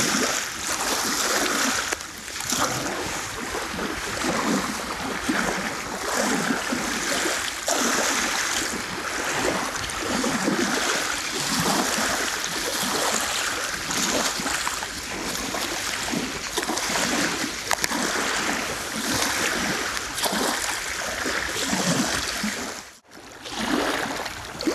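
Waves lapping and splashing against a reservoir shore, a continuous rush of water that swells and falls irregularly. It cuts out briefly near the end.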